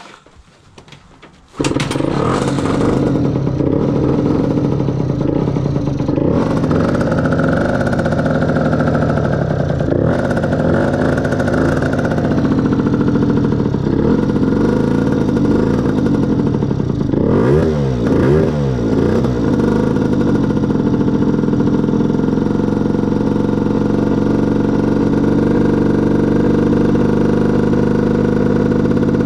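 A 50cc two-stroke motorcycle engine with a Voca expansion-chamber exhaust starts about a second and a half in and runs at a deliberately high idle while the carburettor's idle is being set. The revs waver, rise and fall briefly past the middle, then settle to a steadier idle in the last third.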